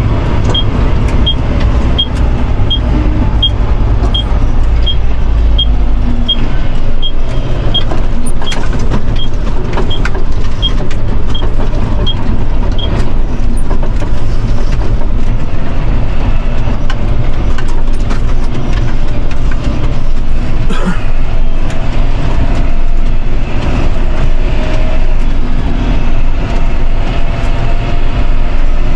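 John Deere tractor's diesel engine running under way, heard from inside the cab, with the turn-signal indicator ticking steadily at a little under two ticks a second; the ticking stops about halfway through as the turn is completed.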